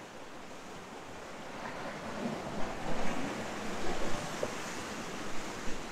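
Sea surf washing against the rocks, growing louder about two seconds in.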